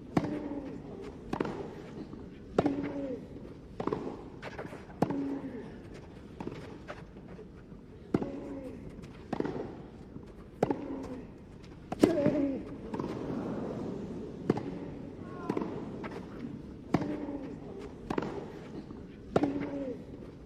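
Tennis rally: racket strings striking the ball back and forth, a sharp pop about every second and a quarter with short pauses between points, with players' grunts on many of the shots.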